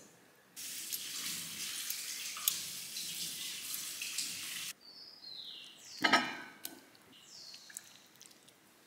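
Two forks tearing apart tender slow-cooked beef on a wooden cutting board, a wet, crackly shredding hiss lasting about four seconds that stops abruptly. Then quieter faint high squeaks sliding downward, with a single sharp knock about six seconds in.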